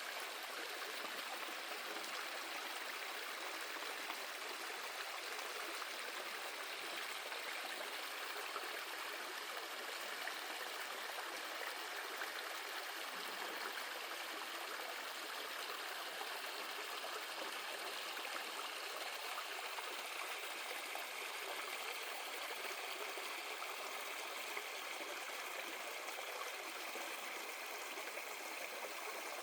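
Valley stream water flowing and babbling steadily.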